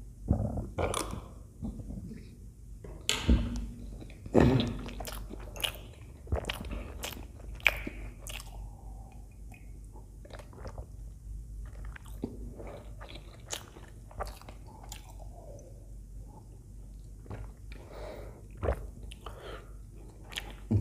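Close-miked wet chewing and mouth clicks of a man eating idli soaked in sambar from a spoon, irregular and sharp, thinning out toward the end.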